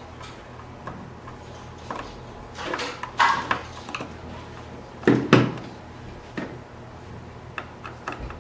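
Clinks and knocks of tools and metal parts being handled during disassembly of a self-balancing scooter, a handful of separate knocks with the loudest about three and five seconds in.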